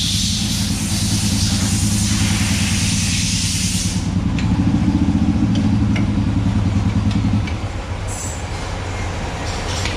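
A machine motor running with a steady, pulsing low hum, cutting off about seven and a half seconds in. A hiss runs with it for the first four seconds, and a few light clicks follow near the end.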